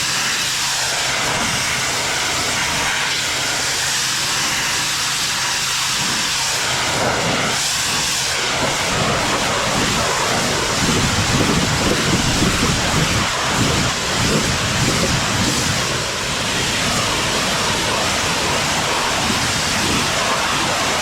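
Pressure washer spraying water onto a pool deck: a steady, loud hiss of the spray, growing a little louder and heavier for a few seconds in the middle.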